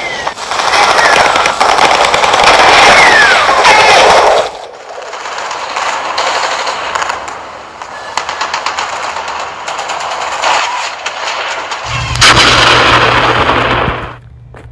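Sci-fi battle sound effects: dense blaster fire with falling zaps for the first few seconds, then thinner, rapid gunfire. A loud burst with a steady low hum comes about twelve seconds in and cuts off suddenly near the end.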